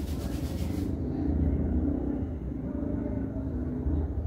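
Palms rubbing briskly back and forth, about four strokes a second, to warm the hands; the rubbing stops about a second in, leaving a steady low rumble.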